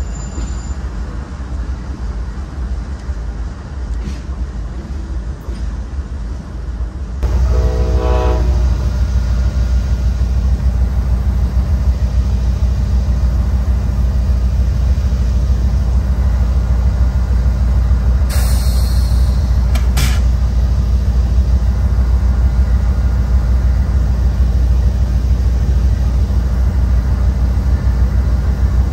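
Diesel freight locomotives idling with a steady low rumble, which steps up louder about seven seconds in. Just after, a train horn sounds briefly, and two short sharp noises come about two-thirds of the way through.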